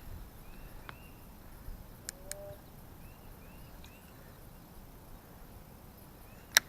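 Outdoor pond ambience: a steady low hiss of wind on the microphone, with short high chirping calls repeating every fraction of a second to a second. A few light clicks fall through it, and one sharp, louder click comes near the end.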